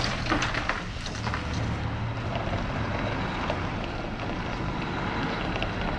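Heavy truck engine running, a steady low rumble.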